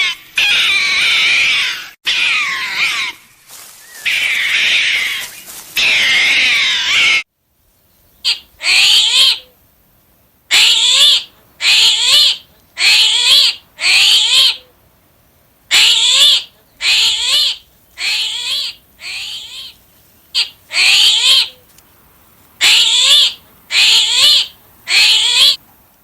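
Young animals calling. First comes a dense chorus of many overlapping high-pitched cries. It cuts off suddenly about seven seconds in, and a single animal follows with repeated short cries that rise and fall, about one a second.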